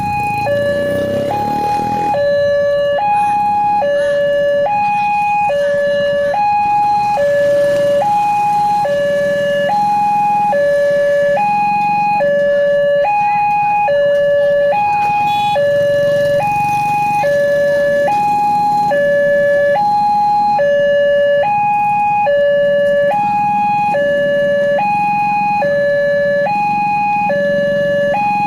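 Railway level-crossing warning alarm sounding steadily: a higher and a lower electronic tone alternate about once a second, the signal that a train is approaching and the barriers are down. A low traffic rumble sits underneath.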